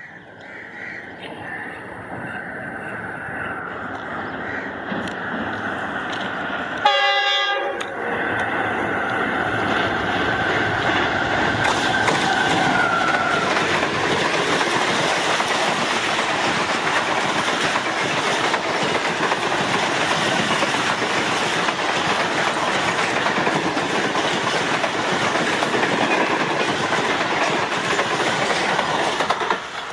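Passenger express hauled by a GEU40 diesel locomotive passing through at about 105 km/h. The locomotive's horn sounds through the first half, with a sharp, loud blast about seven seconds in. The coaches then rush past with a steady roar and clickety-clack of the wheels.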